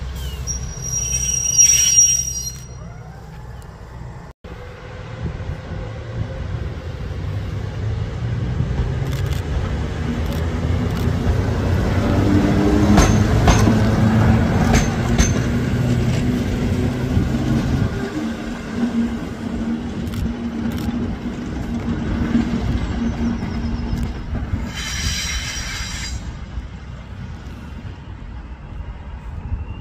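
GB Railfreight Class 73 electro-diesel locomotive 73109 pulling away and passing close by. Its running sound builds to a steady hum with a run of clicks from the wheels on the track, then fades as it moves off. High-pitched wheel squeal comes about a second in and again near the end.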